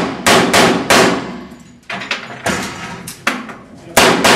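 Pistol shots fired in rapid strings, about nine in all with brief pauses between the groups. Each shot rings on in the concrete-block room.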